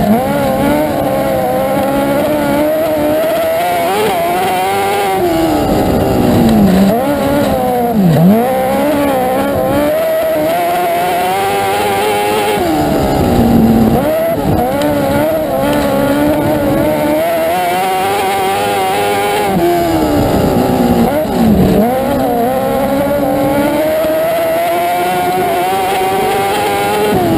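Dwarf car's motorcycle engine racing flat out on a dirt oval, heard on board. The revs climb on the straights and drop sharply several times as the driver lifts into the corners, then wind back up.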